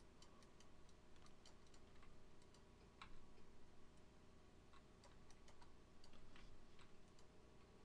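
Faint, irregular clicking of a computer mouse over near-silent room tone.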